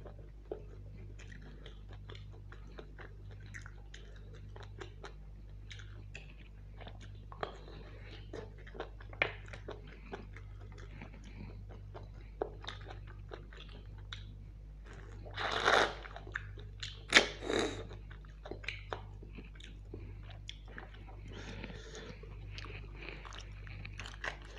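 Close-miked eating of mutton curry with luchi: wet chewing and biting with many small mouth clicks, and a couple of louder bites about two thirds of the way through.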